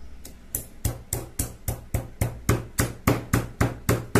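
Pestle pounding whole spices in a stone mortar: a steady run of sharp strikes, about three or four a second.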